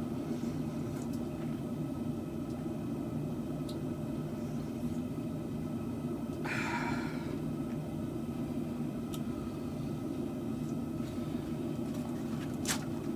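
Steady low hum of a running motor, with a short hiss about six and a half seconds in and a sharp click near the end.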